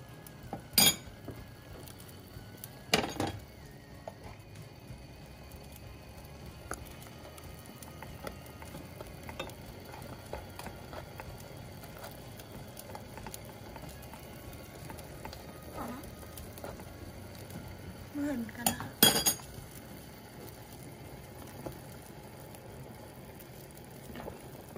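A metal spoon clinking and scraping against a ladle and the rim of a stainless steel pot as tom yum paste is stirred into hot broth. There are sharp clinks about a second in and about three seconds in, and the loudest cluster comes later, over a steady low hiss.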